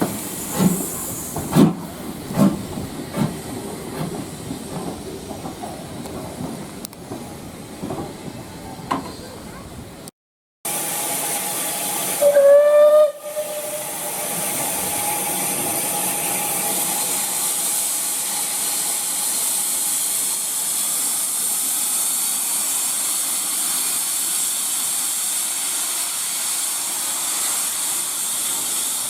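Steam locomotive: a series of knocks about a second apart, then a single short blast on the steam whistle, rising slightly as it sounds, followed by a steady loud hiss of escaping steam.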